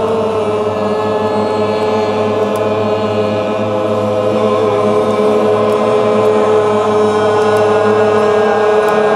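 A group of voices toning together, holding one long sustained note in unison with rich overtones, like a group chant.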